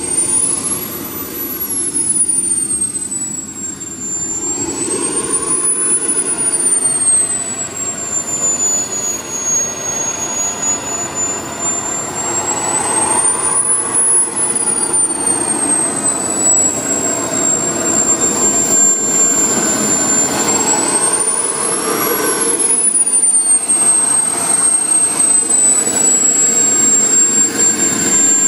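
Small gas-turbine engine of a radio-controlled model jet running at low power. Its high whine rises and falls four times as the throttle is opened in bursts to taxi the jet in after landing.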